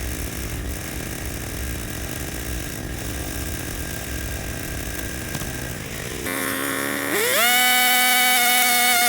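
Small gas engine of a post hole auger running unevenly, warming up after sitting unused for a while. About six seconds in it cuts off abruptly to electronic music, with a synth tone that rises and then holds.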